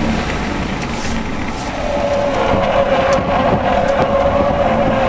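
Cabin noise of a BMW driven at speed on a track: engine and road rumble, joined about two seconds in by a steady droning note that holds.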